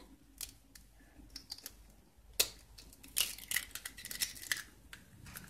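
A hen's egg cracked against a glass bowl: one sharp tap about two and a half seconds in, then quiet little clicks and crackles as the shell is pulled apart over the bowl.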